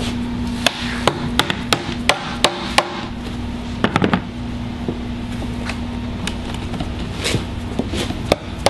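Hammer tapping plastic push rivets into the plastic bag-well liner of a golf cart body. The sharp taps come about three a second at first, with a few more scattered later.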